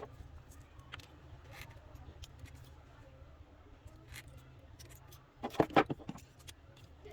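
Hand tools working on scrap copper and e-waste: scattered small snips and clicks over a steady low hum, with a quick run of louder snipping clicks about five and a half seconds in.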